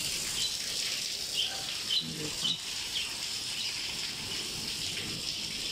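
Heavy rain falling steadily, with a series of short, high chirps repeating every half second or so from a small animal.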